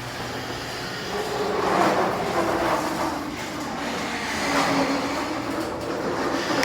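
Chamberlain LiftMaster Professional 1/3 HP screw-drive garage door opener running the door up, the rollers and hinges squeaking unevenly over the steady mechanical rumble of the travel.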